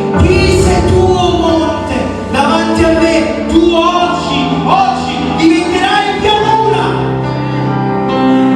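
Worship music: singing over a sustained instrumental backing.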